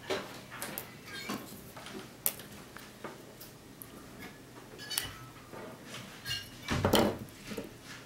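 Small clicks, taps and light metallic clinks of a soldering iron, perfboard and small tools being handled on a desk during soldering. The loudest clatter comes about a second before the end.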